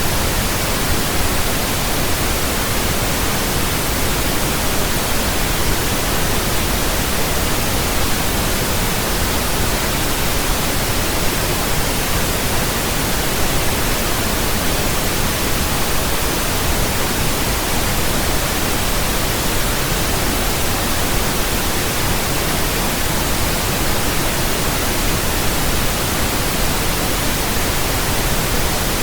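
Steady synthetic pink noise: an even, unchanging hiss spread across the whole range, deeper than white noise.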